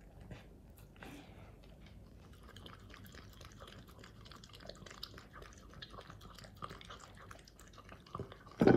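Miniature dachshund licking and lapping at a heart-shaped treat in a ceramic bowl of liquid, a quick run of small wet clicks. A single louder thump near the end.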